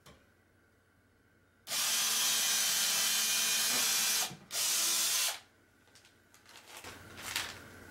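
Cordless drill in a portable drill guide boring into a wooden block. It runs for about two and a half seconds, stops for a moment, then runs again for under a second. Light handling clicks and knocks follow.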